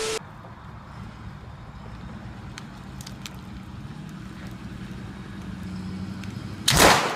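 A brief burst of TV-static hiss with a tone, then a pickup truck's engine running steadily and slowly getting louder as it pulls on a line across the lawn. Near the end a loud, sudden crash.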